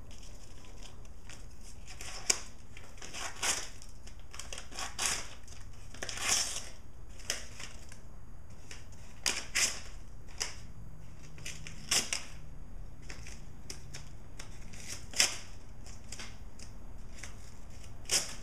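Folded paper, eight layers thick, crackling and crinkling in scattered sharp bursts as it is handled and cut.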